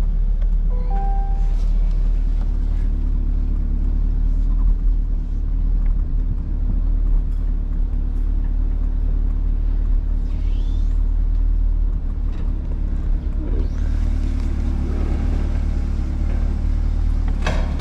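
2020 Corvette C8's 6.2-litre LT2 V8 running steadily at low speed with a deep rumble as the car creeps in reverse. A short clunk comes near the end.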